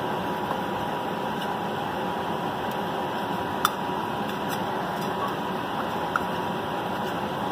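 Steady background hiss with a faint steady tone, broken by a few small sharp clicks of fingers knocking against a stainless steel bowl while kneading a sticky paste. The loudest click comes a little past halfway.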